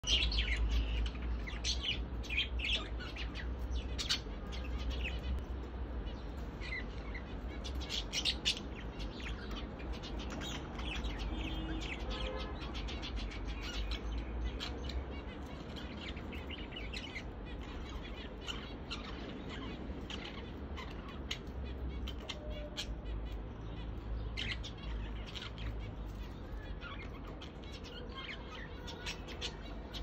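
Caged budgerigars chirping in short, scattered high calls, busiest in the first several seconds, over a low steady rumble.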